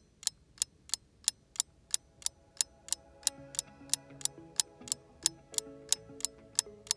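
Clock ticking steadily, about three ticks a second. Soft background music comes in under it about three seconds in.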